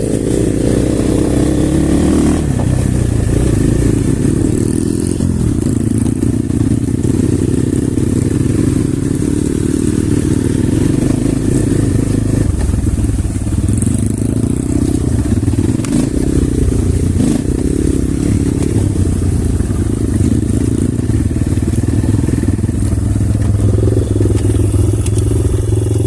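Off-road motorcycle engine running under way, its pitch rising and falling steadily with the throttle, with a few light knocks in between.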